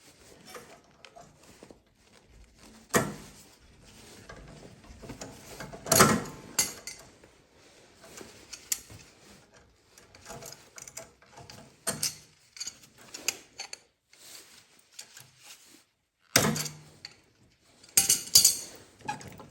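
Irregular metallic clicks, clanks and scrapes of pliers working a spring-loaded drive cable and its hook onto the snowblower's lower connection, with sharp knocks about three and six seconds in and a cluster of them near the end.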